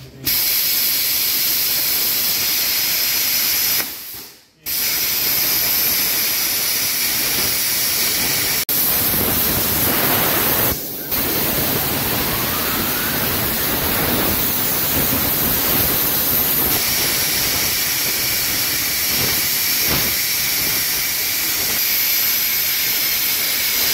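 Handheld plasma cutter's arc and air jet hissing loudly and steadily as it cuts through quarter-inch steel plate. The arc cuts out for about half a second around four seconds in and restarts, with another brief drop near the middle.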